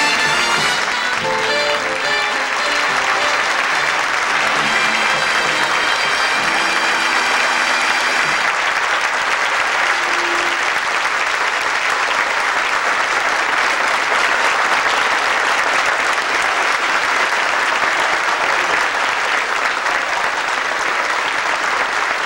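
Audience applauding steadily, with music playing over the clapping for roughly the first eight seconds, after which the applause goes on alone.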